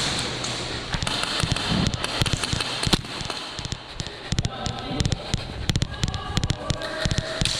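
Airsoft guns firing during a game, a scattered run of sharp cracks and clicks at irregular spacing.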